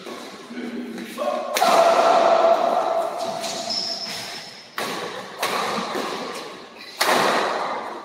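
Badminton rackets striking the shuttlecock hard during a doubles rally, four sharp hits ringing through a reverberant sports hall, with a loud held shout after the first.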